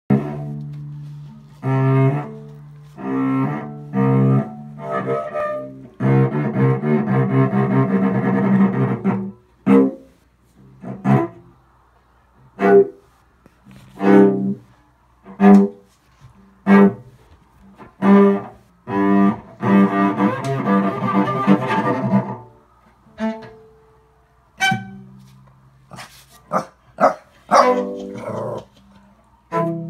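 Cello played with a bow in sustained notes, broken into by a shih tzu puppy's short barks that come about every second and a half during the pauses, and more thickly near the end.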